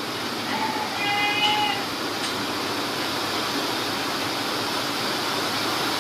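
A goat bleating once, a single call of just over a second about half a second in, over a steady background hiss.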